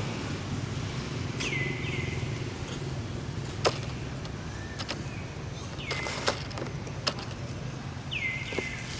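Short bird chirps, each sliding quickly down in pitch, come in pairs about one and a half seconds in, again about six seconds in and near the end, over a steady low rumble. A few sharp clicks sound in between.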